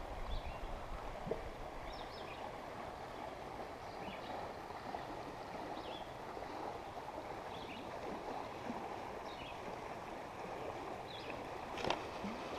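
Creek water flowing steadily, the stream running high after days of rain. Faint short high chirps recur every second or so, with a brief click near the end.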